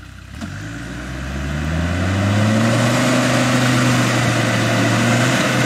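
Land Rover Discovery TD5's five-cylinder turbodiesel revving up over about two seconds and held at high revs under load, pushing through deep mud.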